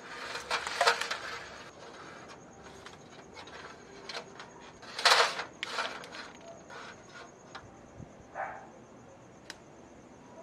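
Rustling and clicking of wiring being handled and routed, with two louder rustling bursts, about half a second in and about five seconds in, and scattered small clicks.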